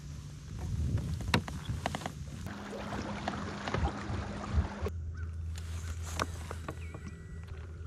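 Kayak out on the water: a low steady hum with water noise and scattered knocks against the hull.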